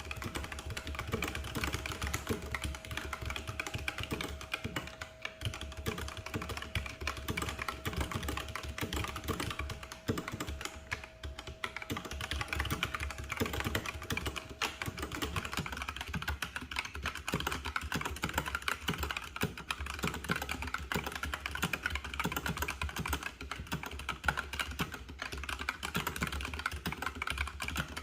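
Mechanical keyboard with Gateron Red linear switches being typed on continuously, a dense, irregular run of keystroke clacks several a second.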